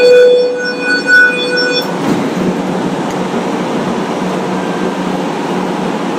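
Tram running on its rails, heard from inside the car. A loud, shrill pitched squeal lasts about the first two seconds, then stops, leaving a steady rolling noise.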